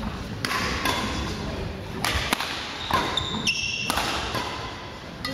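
Badminton hall sounds: a handful of sharp racket-on-shuttlecock hits from play on the courts, and a brief high shoe squeak on the wooden floor about three and a half seconds in.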